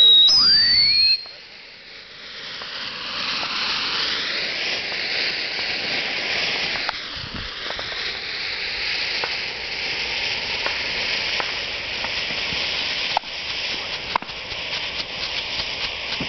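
Ground fountain fireworks going off: a high whistle falls in pitch and cuts off about a second in. Then a spark fountain hisses steadily with scattered pops, crackling faster near the end.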